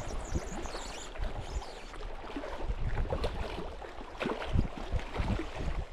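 Water lapping and sloshing at the shore, with scattered low knocks and rustles.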